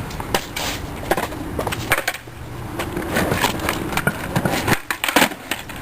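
Skateboard rolling on pavement, its wheels rumbling under a run of sharp clacks and knocks from the board.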